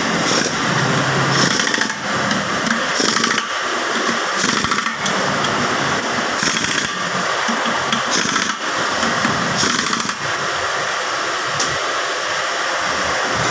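A power tool running in short repeated bursts, about one every one and a half to two seconds, over a steady loud workshop noise. The bursts stop about ten seconds in.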